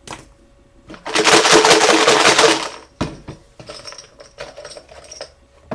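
Hard numbered raffle pieces rattling as they are shaken in a container for the next draw, followed by lighter clicks and clinks as one is picked out.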